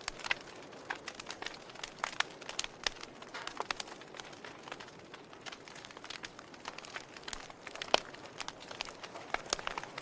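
Fire crackling: irregular sharp pops and snaps over a soft steady hiss, with one louder pop about eight seconds in.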